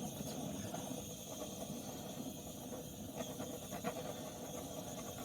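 Steady low basement background hum and hiss, with a few faint clicks about three and four seconds in.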